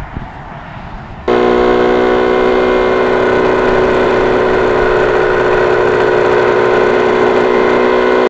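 Yamaha RD400's air-cooled two-stroke parallel-twin engine running at a steady speed under way. It cuts in suddenly and loud about a second in, after a quieter stretch of outdoor noise.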